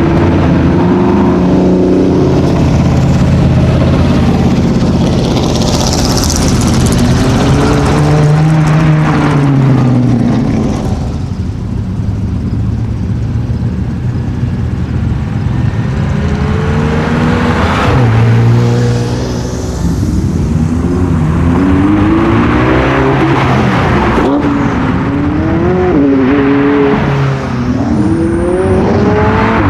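Sports car engines accelerating and revving as cars pass one after another, the engine note climbing and dropping again and again with gear changes. Somewhat quieter for a few seconds in the middle.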